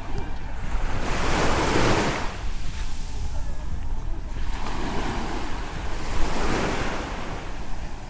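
Small waves washing up onto a sandy beach, the surf swelling twice, a second or so in and again about halfway through, over a steady low rumble of wind on the microphone.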